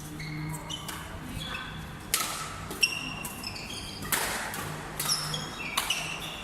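Sports shoes squeaking in short bursts on an indoor court floor during a rally, with a few sharp hits and thuds about two, three, four and six seconds in, in an echoing hall.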